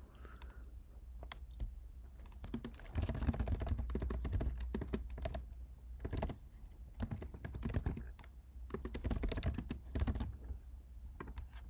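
Typing on a computer keyboard: quick runs of key clicks with short pauses, sparse at first and busier from about three seconds in.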